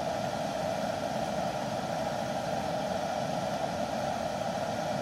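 Steady rushing noise of a camp stove's blue flame burning under an aluminium foil tray of nabeyaki udon as the broth heats.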